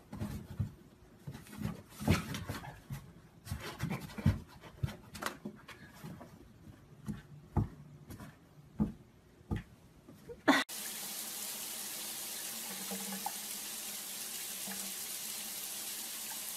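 Irregular taps and scrapes as a cat's paw bats a small object across a cardboard surface. About ten seconds in, this gives way to a steady hiss of water running from a bathtub tap.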